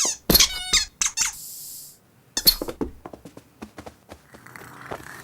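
Cartoon cat's high squeaky vocal effects, a wavering squeal that steps down in pitch, then a short hiss. A run of quick light taps follows, and faint music comes in near the end.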